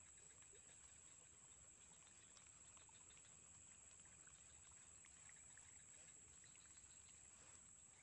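Near silence: faint outdoor background with a steady, thin high-pitched tone and a few tiny faint ticks.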